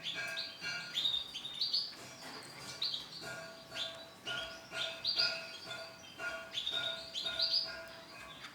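Female canary chirping: short rising calls, repeated about once or twice a second.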